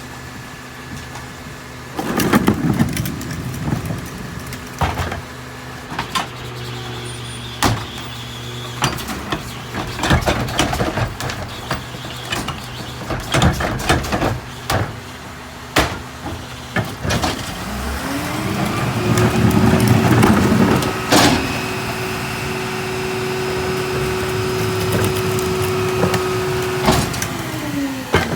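New Way mini rear-loader garbage truck idling while trash is thrown into the hopper, with repeated bangs and clatters. About two-thirds of the way in, the engine revs up and holds a steady higher pitch while the hydraulic packer runs a cycle, then drops back to idle near the end.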